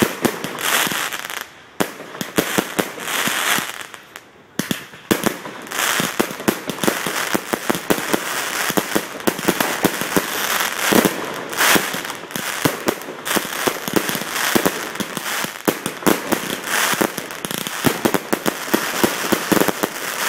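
Fireworks going off overhead at close range: dense crackling and popping, many sharp cracks a second, with short lulls about two and four seconds in.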